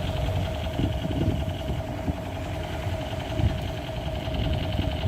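Battery-powered toy UMP machine gun firing: its motor buzzes steadily with a fast rattle, over irregular low thumps from handling.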